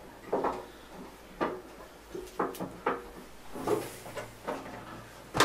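A handful of separate knocks and clunks, hard parts meeting, as a Jesse Luggage pannier is slid and fitted onto its mounts on the motorcycle's rack.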